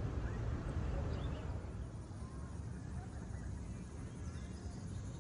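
Steady low rumble of wind buffeting the microphone on an open chairlift ride, a little stronger in the first couple of seconds, with a few faint high bird chirps.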